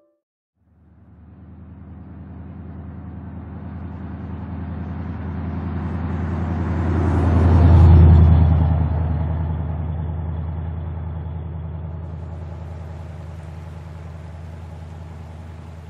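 A car driving past: its engine swells as it approaches, is loudest as it passes close about halfway through, then fades as it drives away.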